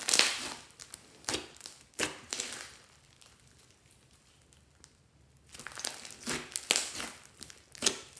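Hands pressing and stretching a thick, fluffy pink-and-purple slime, its trapped air crackling and popping in short bursts. The bursts come in two clusters, at the start and near the end, with a quiet stretch in the middle.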